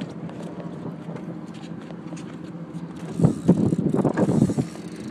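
A steady low mechanical hum, like an engine running, goes on throughout. About three seconds in, a louder uneven rumbling lasts a second and a half, as something rubs against the phone's microphone.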